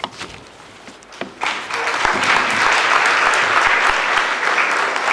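Audience applauding: a few scattered claps at first, then from about a second and a half in the whole audience joins in with steady, loud applause.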